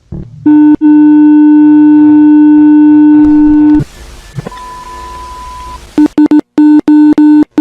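Harsh electronic emergency-alert tone: a very loud low buzzing tone held for about three seconds, then a fainter higher beep, then the low tone again, chopped into a rapid stutter of short bursts near the end.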